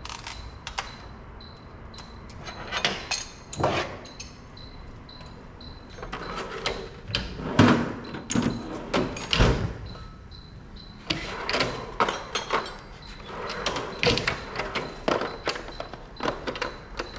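Irregular knocks and clunks, many in quick clusters, like hard parts being handled or bumped together.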